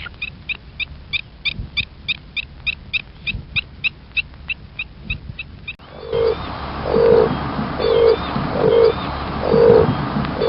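Bird calls: a fast run of short, high chirps at about four a second, then, after an abrupt change, six low hooting notes roughly two-thirds of a second apart over a background hiss.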